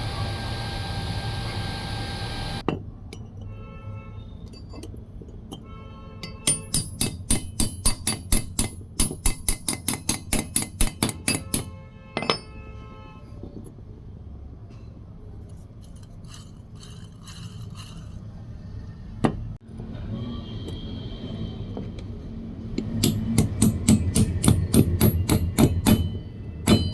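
A hammer striking steel in quick runs of blows, about three or four a second, each with a metallic ring, with lighter taps in between. At the start a motor runs steadily and cuts off about two and a half seconds in.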